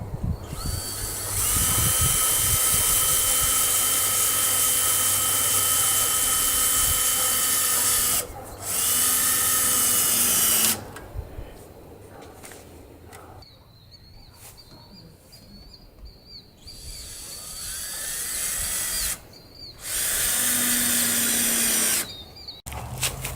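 Power drill driving screws in several runs, the first about seven seconds long and the rest a second or two each, its motor a steady whine that drops away between runs.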